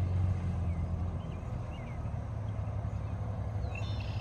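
A steady low hum with a few faint, short high chirps from small birds about a second in and again near the end.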